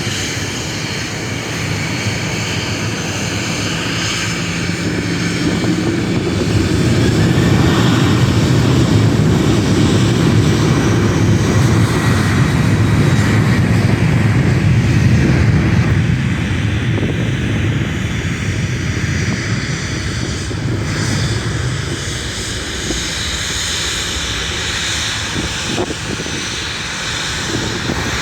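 Boeing 737-800's CFM56 jet engines, a loud rumble that builds over the first several seconds, stays strongest for about ten seconds, then fades as the airliner moves away.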